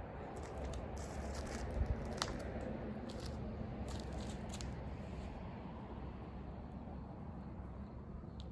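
Footsteps crunching and scuffing on a dry dirt trail, a few sharper crackles among them, over a steady low rumble.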